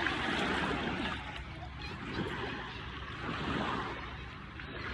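Shallow waves washing and lapping on a beach shoreline, a steady hiss of water that swells and eases.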